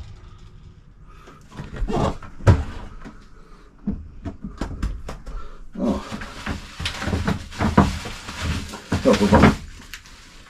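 Hard plastic of a composting toilet clunking a few times as it is opened and handled, then several seconds of rustling and scraping as packing cardboard and a bottle are pulled out of its bin.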